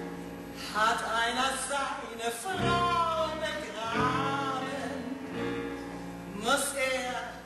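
A woman singing a musical-theatre song with wide vibrato over an orchestra's held chords.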